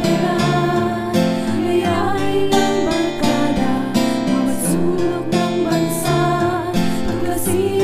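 Background music: a song with strummed acoustic guitar and a sung melody.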